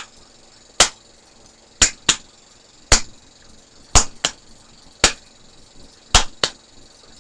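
A simple beat of sharp finger snaps, about one a second with a quick extra snap every other beat or so.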